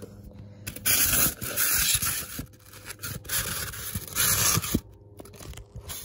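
Clear vinyl tubing scraping and rubbing against the plastic port of an ant outworld as it is worked into place, in about four rough bursts of under a second each.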